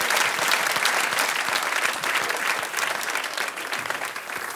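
Studio audience applauding, a dense patter of many hands clapping that fades away over the last couple of seconds.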